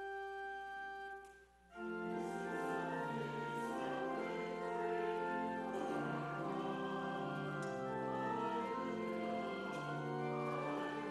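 Church organ: a held chord ends about a second and a half in, and after a short break the organ starts a hymn in full, sustained chords.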